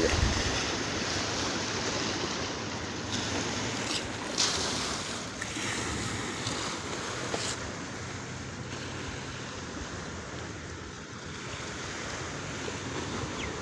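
Sea surf washing onto a sandy beach: a steady rush of wave noise.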